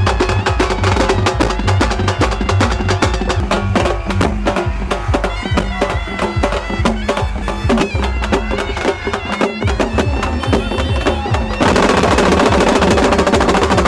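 Music with a fast, busy percussion beat under a reedy wind-instrument melody. Near the end it turns fuller and a little louder.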